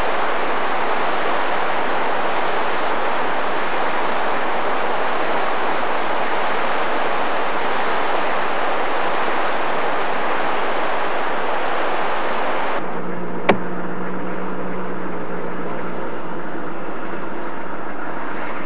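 Mountain river rapids rushing in a steady, even wash of whitewater noise, which cuts off suddenly about thirteen seconds in. After the cut comes a quieter steady hum with a few level tones, and a single sharp click.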